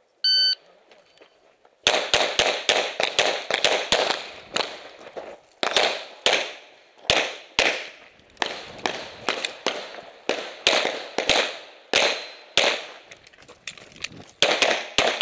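A shot timer beeps once, and about a second and a half later a semi-automatic pistol opens fire. Dozens of shots follow in quick pairs and strings, broken by short pauses while the shooter moves between positions.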